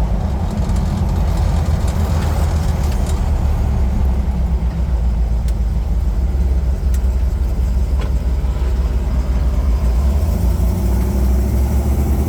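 1976 Jeep CJ7's 304 AMC V8 running while the Jeep is driven, a steady low rumble. About ten seconds in the engine note settles into an even drone.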